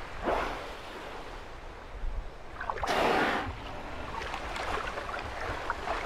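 Orcas surfacing in an open lead in sea ice: water sloshing, with a short loud breathy blow about three seconds in and a fainter one just after the start.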